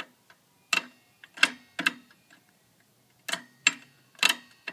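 Sharp metallic clicks, about eight at uneven spacing, some with a brief ring, from a Jet wood lathe's spindle and pulleys being turned over by hand and catching, which the owner takes for a pulley set knocked crooked.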